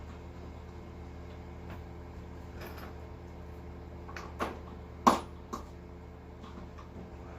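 Three sharp metal clinks about four to five and a half seconds in, the middle one the loudest, as bolts and hand tools are handled while bolting parts onto the boat. A steady low electrical hum runs underneath.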